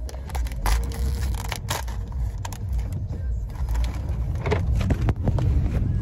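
Pocky snack bag crinkling and crackling as it is pulled open, over the low steady rumble of a car. A few louder knocks come near the end as the camera falls.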